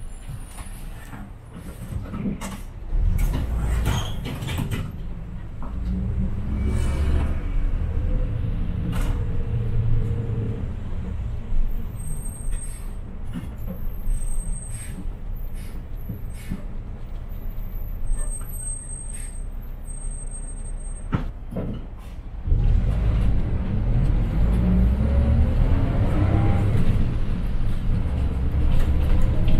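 City bus engine running as the bus drives, heard from on board, with scattered rattles and knocks. The engine gets louder about three seconds in, and again about two-thirds of the way through, where its pitch rises as the bus pulls harder.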